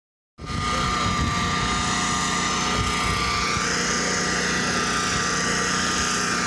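Small camera drone's propellers whirring steadily in a hover, with a constant multi-pitched motor whine.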